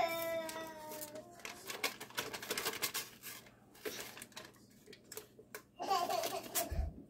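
A toddler's whiny crying trails off in the first second or so. Then come quick crinkles and rustles of a butter stick's paper wrapper being peeled open and the butter dropped into a metal mixing bowl, with a short sound from the child near the end.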